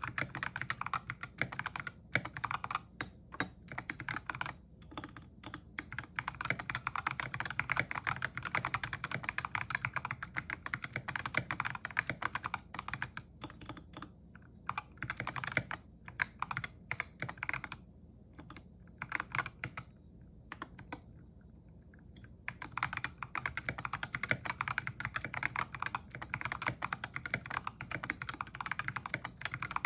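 Fast, continuous typing on an Epomaker GK61xs 60% mechanical keyboard with stock Ajazz Kiwi tactile switches, tall SA-profile keycaps, a tape mod and lubed stabilizers: rapid keystroke clacks. The typing thins out and stops briefly about two-thirds of the way through, then resumes.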